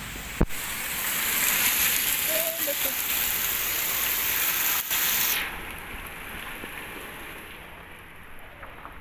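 Heavy rain pouring onto a swimming pool and the surrounding paving, a dense steady hiss. There is a sharp click just after the start. A little past halfway the rain suddenly turns duller and quieter, with its hiss muffled, and keeps falling.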